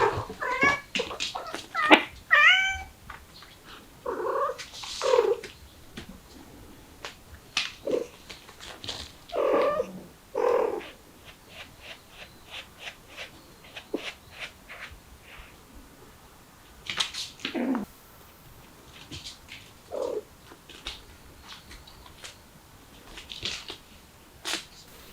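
Mother cat and kittens meowing: a quick run of short, high-pitched mews in the first few seconds, then scattered lower calls through the rest. Light clicks and knocks of movement fall in between.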